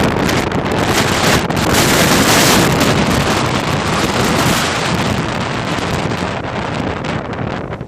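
Strong gusting wind buffeting the microphone, a loud rushing noise that swells about two seconds in and eases a little toward the end.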